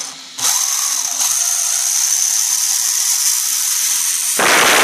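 Toro 2150 kV brushless motor of an electric-converted Mugen MRX3 on-road car running on the bench through its two-speed transmission: a steady high whine, turning to a much louder rushing sound near the end as it speeds up, which the owner points to as the second gear kicking in.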